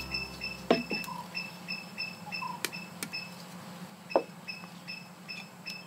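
Quiet background with short, high-pitched chirps repeating at several a second, broken by brief pauses, and a few sharp clicks.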